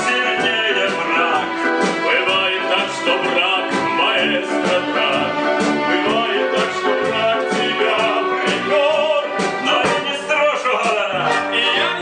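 Live orchestra playing an upbeat number with a steady beat of about two strokes a second.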